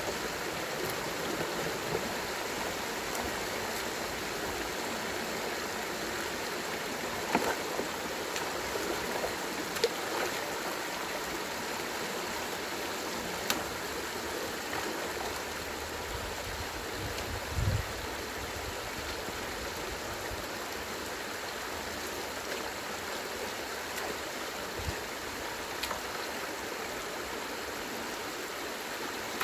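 Rain-swollen stream water rushing steadily through a beaver dam, with a few sharp knocks and a short low thump about two-thirds of the way in.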